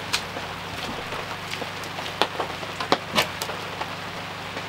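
Steady rain falling, with sharp irregular taps of drops landing close by.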